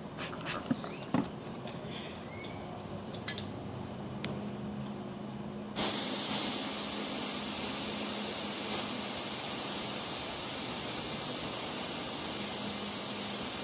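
A steady, even hiss of a pressurised spray that starts suddenly about six seconds in, after a few faint clicks.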